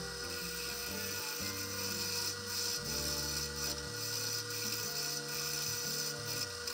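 Wood lathe running with a steady motor whine while a hand-held turning tool cuts a spinning pen blank, the scraping of the cut swelling and fading as the tool moves along. Faint background music with a slow bass line underneath.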